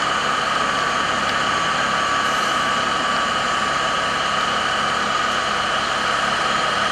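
A vehicle engine idling steadily, with a constant high-pitched whine over the running.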